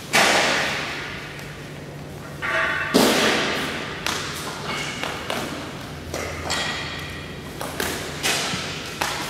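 Metal parts being set down and knocked about in a large echoing workshop: a string of irregular thuds and knocks, the loudest right at the start and about three seconds in, with a short metallic ring just before the second big hit.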